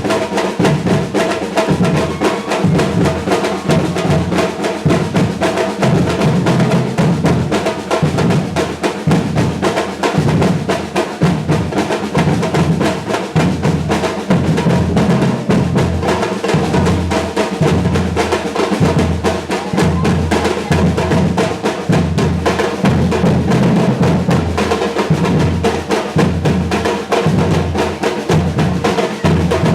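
A Brazilian batucada drum ensemble playing continuously: deep bass drum beats pulse steadily under dense snare drumming and sharp, higher percussion strokes.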